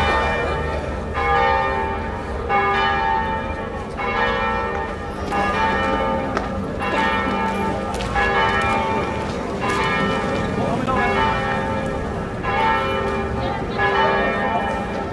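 Bells ringing in a steady sequence of strikes, about one every 1.2 seconds, each strike ringing on with several tones before the next.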